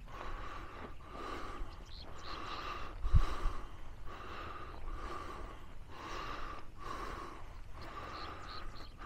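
Heavy breathing close to the microphone, in and out about once a second, with a single low thump about three seconds in.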